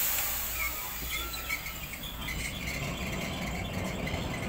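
Heritage electric tram at a stop: a burst of air hiss fades away over the first second, then a steady low rumble as the tram pulls away, with faint short high squeaks.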